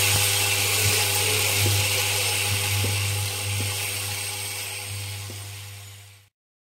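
Vibratory bowl feeder running with a steady low hum, M8 automotive clip nuts rattling and clicking as they shake along its track in a line. The sound fades over the last few seconds and cuts off near the end.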